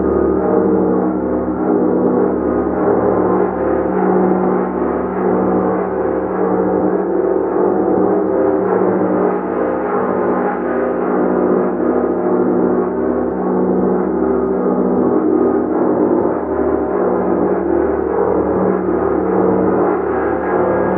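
Large gong played continuously, a dense sustained wash of overlapping tones that swells and pulses slowly without distinct separate strikes.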